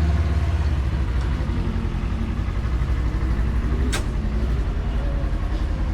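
A vehicle driving, with a steady low engine and road rumble and a single sharp click about four seconds in.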